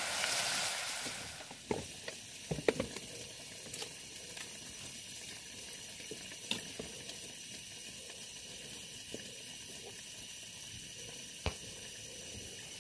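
Food sizzling in a hot pan: a loud hiss that dies down about a second and a half in, then a quiet steady sizzle with a few light clicks and knocks.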